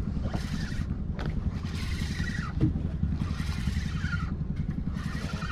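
A small fishing boat's engine running steadily at low revs, a constant low rumble, with a few short rushes of hiss over it.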